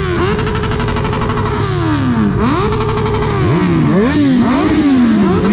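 Several motorcycle engines revved again and again, the blips overlapping. Each rev climbs quickly, holds at high revs for a moment, then winds slowly back down.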